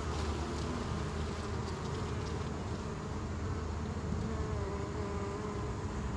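Honeybees buzzing around an opened hive: a steady drone, with the pitch of single bees wavering gently as they fly about.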